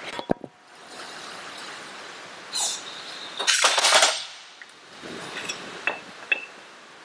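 Metal being handled in a hydraulic shop press's bending die as the bent plate is taken out: a scraping stretch, loudest around the middle, then a few sharp metallic clinks near the end.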